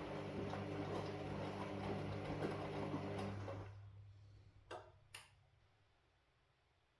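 Washing machine running with a steady motor hum and light ticking, then winding down and stopping about four seconds in; two sharp clicks follow as it falls silent.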